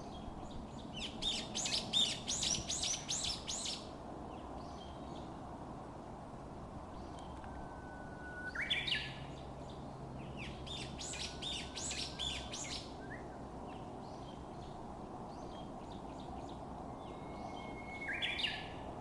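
Japanese bush warbler singing its 'hoo-hokekyo' song twice, a long steady whistle ending in a quick higher flourish, about 8 s in and again near the end. Between them come two longer stretches of rapid high twittering birdsong, the loudest sounds, over a steady faint hiss of the outdoors.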